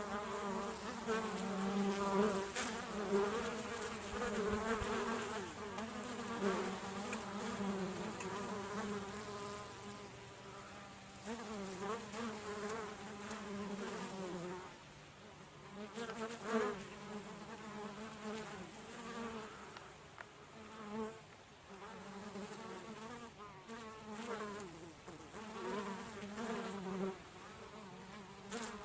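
Honeybees buzzing in flight, several wingbeat hums overlapping and wavering in pitch, louder in the first half, with a few brief clicks.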